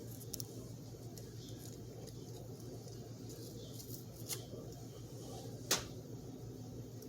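A few sharp clicks and faint crackles from handling small objects, over a steady low hum.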